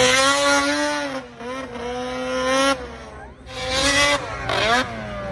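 Snowmobile engine revving hard at high pitch, easing off briefly twice and then climbing again in quick rising revs as the sled runs up the kicker ramp to launch.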